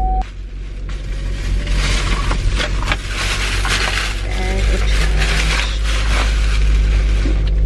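Plastic bag rustling and crinkling as it is handled and shaken open, over a steady low hum.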